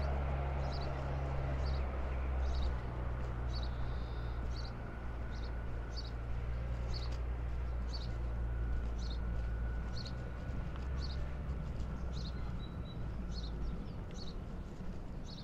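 Footsteps at an even walking pace, a little more than one step a second, over a steady low hum.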